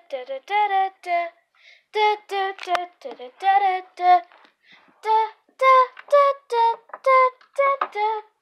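A young child singing a tune alone, no instruments, in short held notes a few a second.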